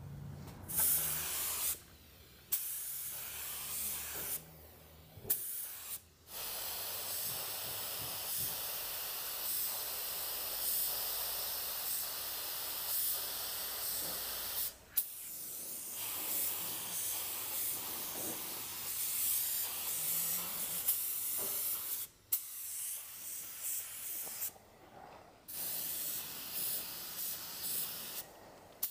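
Iwata spray gun on compressed air spraying urethane sealer: a steady high hiss in passes, cut off briefly by trigger releases several times between passes.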